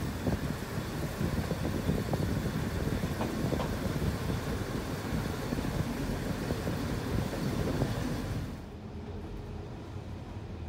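Fiat M4 diesel railcar running along the track, heard at an open side window: a dense clatter of wheels and engine with wind noise. A little over eight seconds in this gives way to the quieter, duller rumble heard inside the closed passenger carriage.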